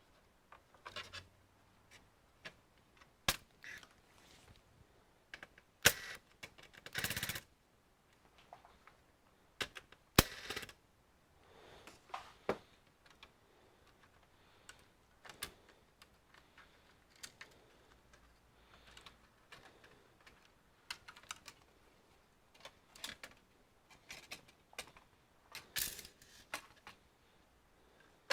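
Irregular clicks, taps and small knocks of plastic and metal parts being handled while an all-in-one PC is taken apart, with a brief rasping noise about seven seconds in.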